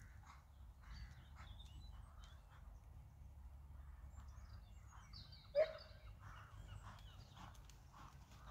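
A horse's hooves thudding at a steady rhythm on the arena surface, under a low wind rumble on the microphone. A small dog gives one sharp bark about five and a half seconds in, the loudest sound.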